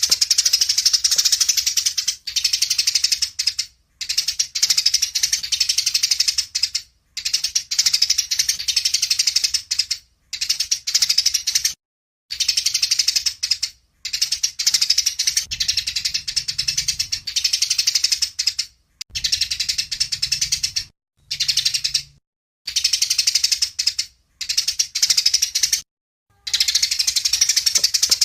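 Songbird singing a rapid, dense chattering song, delivered in repeated phrases of one to three seconds with short breaks between them.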